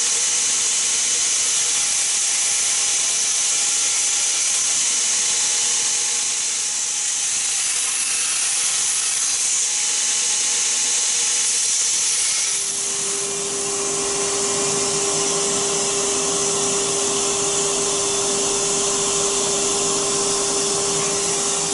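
Belt grinder running while beech wooden knife handle scales are ground down against its abrasive belt: a steady high hiss. About twelve seconds in a lower steady hum joins it.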